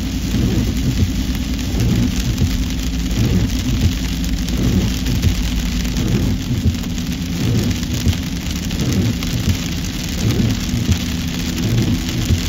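A car driving along a highway: a steady low rumble of engine and tyres on the road, with a continuous hiss over it.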